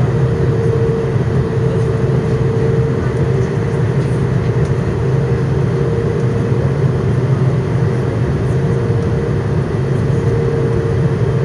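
Steady cabin noise inside an Airbus A330 on its landing approach: the turbofan engines and rushing air make an even, low drone, with a steady mid-pitched hum running through it.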